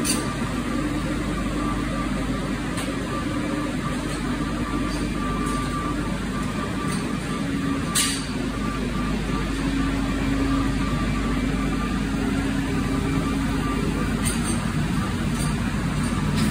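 Sgariboldi feed mixer wagon running while it drives slowly along the feed alley and unloads mixed feed from its side discharge chute: a steady mechanical drone from its engine and mixing augers, with a faint held whine. There is one sharp clack about eight seconds in.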